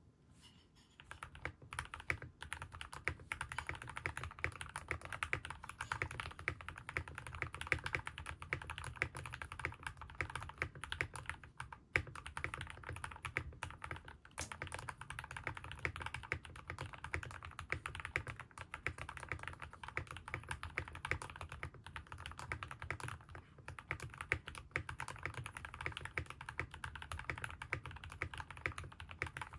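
Keydous NJ68 Pro mechanical keyboard with hand-lubed Everglide Aqua King linear switches, tape and foam mods, being typed on quickly in a steady stream of key strikes with a creamy, deep sound. The typing starts about a second in. It is picked up by the camera's microphone.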